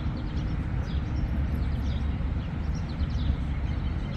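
Outdoor ambience: a steady, uneven low rumble of wind on the microphone, with faint short high chirps from small birds now and then.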